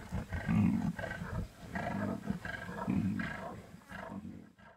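Lions growling at a buffalo kill while they feed: a run of short, deep growls about a second apart, fading out near the end.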